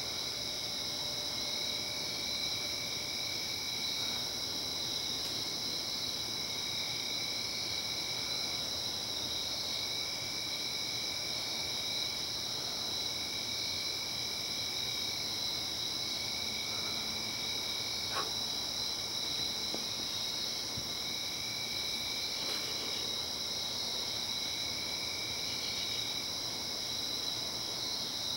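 A night chorus of crickets and other insects, trilling steadily at several high pitches. One lower trill stops and starts again every couple of seconds.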